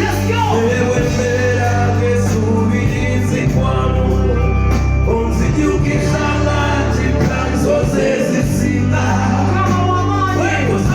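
Band music with singing over a steady bass, played through a loud sound system.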